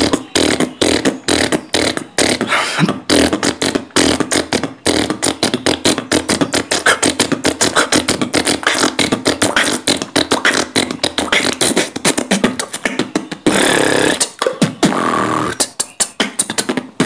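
Human beatboxing: rapid vocal percussion made with the mouth, sharp strokes in a fast steady rhythm with a hummed voice woven between them, and a brief sustained hiss about thirteen seconds in.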